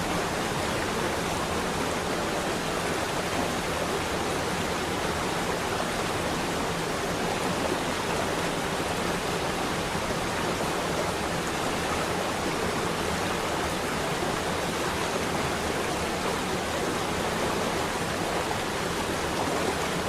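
Waterfall cascading, a steady, even rush of falling water.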